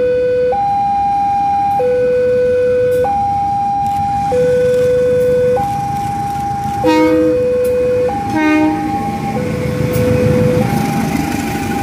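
Level-crossing warning alarm sounding a two-tone signal that switches between a high and a low tone about every second and a quarter. Two short horn toots come at about 7 and 8½ seconds. Near the end a diesel engine rumble builds as the CC 201 diesel-electric locomotive passes close by.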